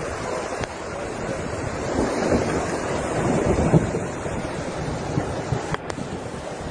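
Rushing torrent of muddy floodwater surging along a street, heard through a car window, with rumbling wind noise on the phone's microphone.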